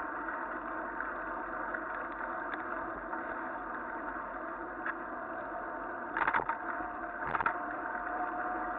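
Bicycle rolling fast on a wet asphalt path: steady rushing tyre and ride noise, with two short rattles about six and seven seconds in.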